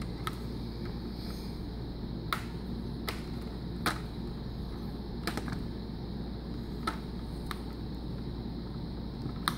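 Plastic display bezel of a Dell E7440 laptop being pressed back onto the lid by hand, its clips snapping into place in about eight sharp, irregularly spaced clicks over a steady low hum.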